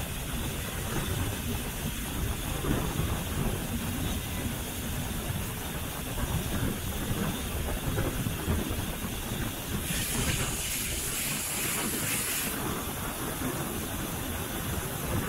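Steam locomotive 414.096, a 1906 kkStB class 73 0-8-0, running along the line heard from its front end: a steady low rumble. About ten seconds in, a burst of steam hiss lasts a couple of seconds and then stops.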